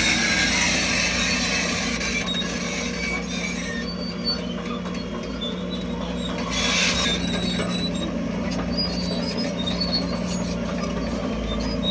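Crawler bulldozer working, its diesel engine running steadily while the steel tracks give off short, high squeaks again and again.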